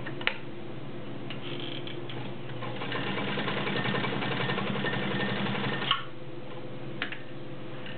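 Kenmore Model 84 sewing machine running and sewing basic stitches: a steady motor hum with the needle's fast, even clatter, which speeds up and gets louder about three seconds in and eases off near six seconds. A few sharp clicks come near the start and near the end.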